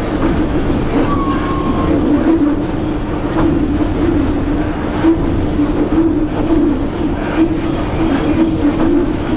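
Cab noise of an EP1 electric locomotive running at speed: a steady hum over rumbling wheel-on-rail noise with faint clicks. A short high tone sounds about a second in.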